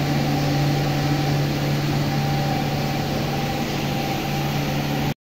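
Steady machine hum with a constant low drone, which stops abruptly about five seconds in.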